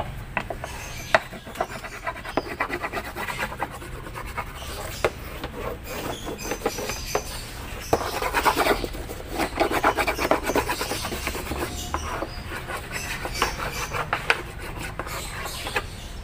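Wood being scraped or rubbed by hand: rough, rapid rasping strokes that come in several bursts with short pauses between them.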